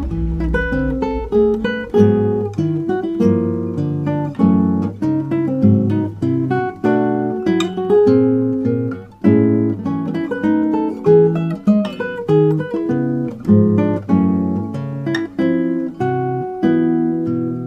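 Outro music: acoustic guitar playing a run of plucked notes.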